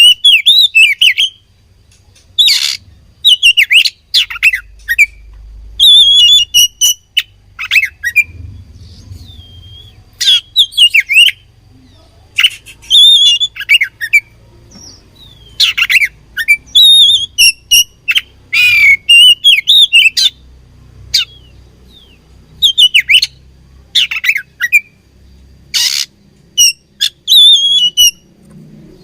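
Oriental magpie-robin (kacer) singing: short, loud bursts of whistled phrases and sharp chips, repeated every second or two with brief pauses between them.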